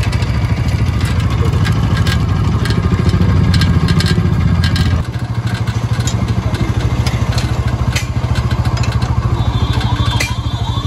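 Bajaj Pulsar NS200's single-cylinder engine running with the drive chain clattering. The rattle comes from a loose, rusted chain that the owner says is slack enough to touch the exhaust. About five seconds in, the engine note drops and gets a little quieter.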